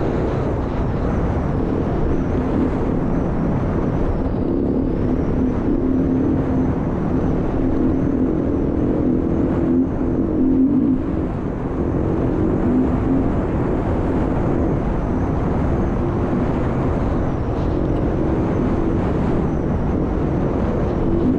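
Beta RS 500 dual-sport motorcycle's single-cylinder four-stroke engine running steadily under way, with a small dip in level about halfway through.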